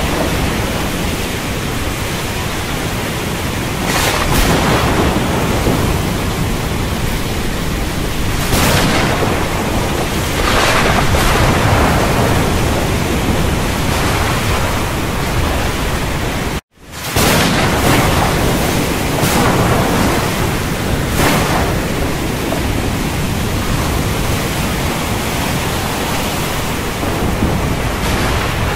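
Thunderstorm ambience: a steady dense hiss of storm noise with rumbling surges every few seconds. About two-thirds of the way through it cuts out to silence for a split second, then comes straight back.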